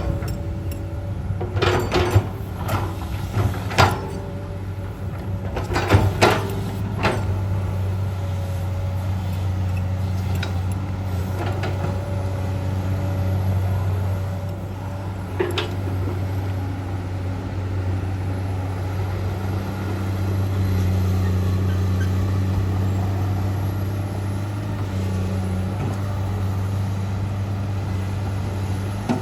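Komatsu PC200-8 excavator's six-cylinder diesel engine running steadily while the machine works, with several sharp knocks in the first seven seconds or so and one more about halfway through.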